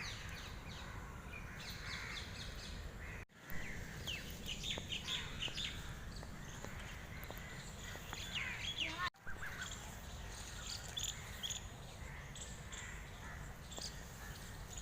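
Birds chirping and calling in a park, many short high calls overlapping, over a steady low background rumble. The sound cuts out briefly twice.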